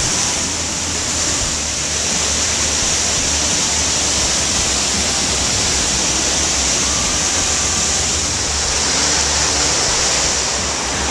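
Waterfall pouring down close by, a loud steady rushing of falling water. It is heard from right under the falls, behind the falling water.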